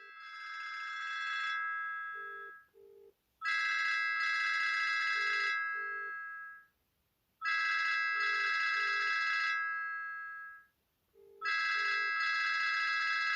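Telephone ringtone ringing four times, about one ring every four seconds: each ring is a trilling tone of two to three seconds that fades away, followed by a pair of short low beeps.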